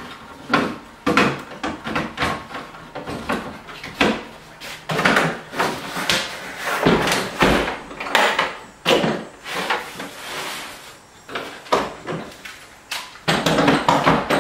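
Repeated hard plastic clicks, knocks and rattles from handling Milwaukee M18 batteries and tool cases on a countertop: batteries seated onto a charger, then a hard plastic tool case opened and rummaged through.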